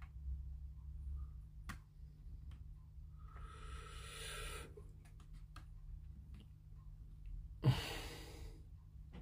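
A person exhaling heavily twice, a long breath a few seconds in and a louder one starting with a soft bump near the end, over faint clicks of plastic model parts being pressed together by hand and a steady low hum.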